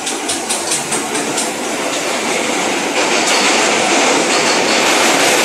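New York City subway train running on the rails, its wheels clicking over rail joints about four times a second. About three seconds in, the clicks give way to a louder, steady rumble.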